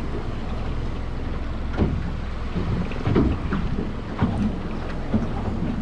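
Wind buffeting the microphone on a small boat at sea, a steady low rumble, with several short knocks and slaps scattered through it.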